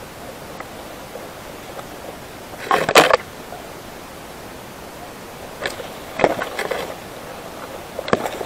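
Leaves and twigs rustling and crackling as someone pushes through dense brush. There are bursts about three seconds in, a few around six to seven seconds, and one near the end, over a steady hiss.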